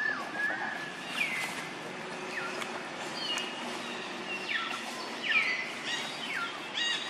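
Outdoor ambience with birds calling: a string of short chirps that slide down in pitch, over a steady background hiss.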